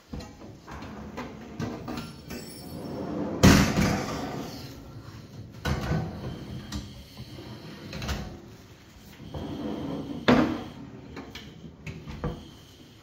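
Kitchen cabinet drawers and a chrome wire-basket pull-out slid open and pushed shut on their runners: a sliding rumble broken by several knocks, with the two loudest a few seconds in and about ten seconds in.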